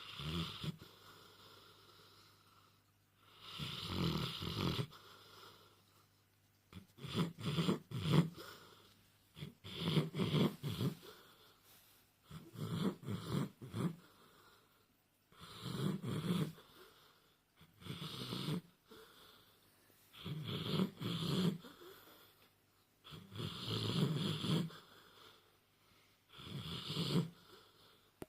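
Sleeping dog snoring: a rasping snore about every three seconds, nine or so in a row.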